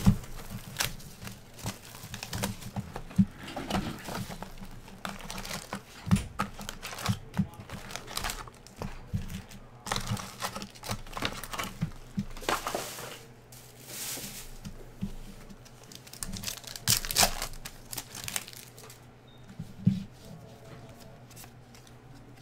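Clear plastic shrink wrap crinkling and tearing as it is stripped off a card box, then foil trading-card packs rustling and being torn open; irregular crackles that die down near the end.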